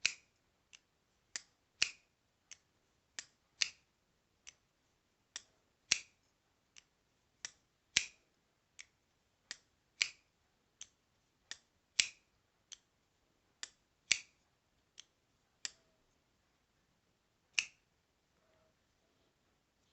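Folding knife being flicked open and shut over and over: sharp clicks and snaps of the blade and lock, a louder snap about every two seconds with lighter clicks between, stopping near the end. The action is a little stiff, one that may smooth out with use.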